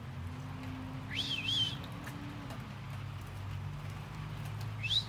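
A bird calling twice: each call is a rising whistle that breaks into a wavering note, once about a second in and again near the end, over a low steady hum.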